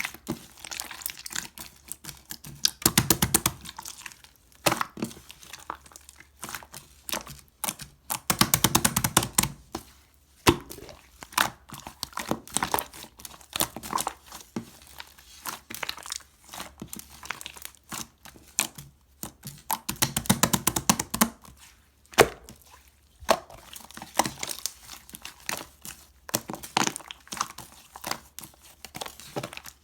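Clear slime being squished and kneaded by hand with clay mixed in: a steady run of sticky clicks and small pops, with denser spells of rapid crackling about three seconds in, around nine seconds, and around twenty seconds in.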